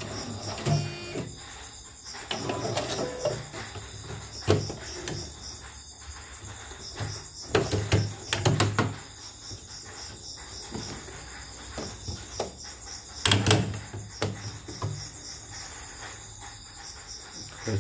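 Plastic knocks and clacks from the embroidery hoop of a CNY E900 portable embroidery machine being handled and taken off the machine after stitching. The loudest clusters come about eight seconds in and about thirteen seconds in. Steady high chirping of insects runs in the background.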